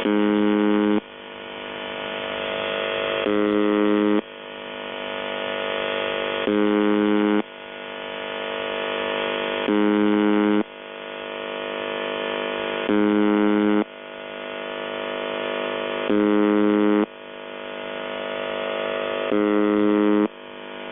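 UVB-76 shortwave station ('The Buzzer') received over radio: a harsh one-second buzz repeating about every three seconds, with radio hiss swelling between the buzzes.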